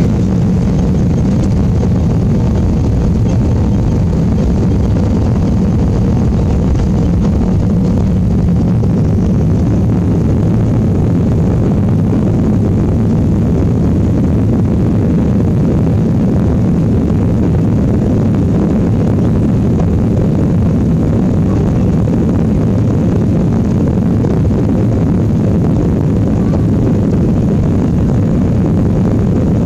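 Cabin noise of an Airbus A320 on its takeoff roll: the jet engines at takeoff thrust, a loud, steady noise heavy in the low end.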